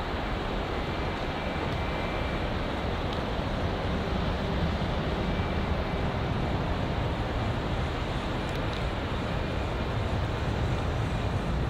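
Jet airliner's engines at takeoff thrust, a steady rushing noise heard from the ground as the aircraft climbs away.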